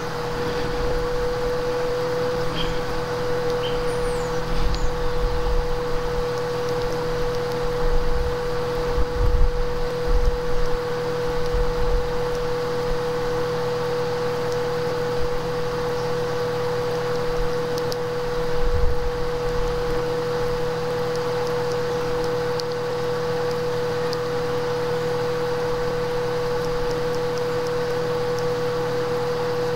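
A steady electronic whine at one constant pitch over an even hiss and a low hum, with a few brief low rumbles about a third of the way in and again past halfway.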